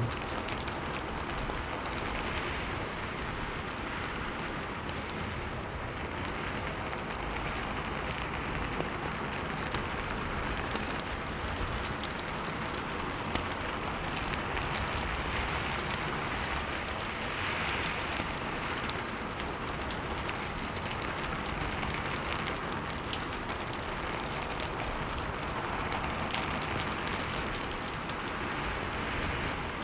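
Steady rain ambience with faint crackling of a wood fire, even and unchanging throughout.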